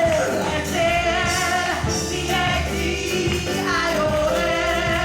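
Live gospel song: voices singing a sustained, held line over steady instrumental accompaniment.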